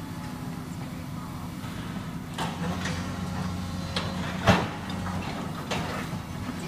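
Excavator demolishing a house: a steady engine hum under a series of sharp cracks and crashes of wood debris, starting about two and a half seconds in, the loudest crash about four and a half seconds in.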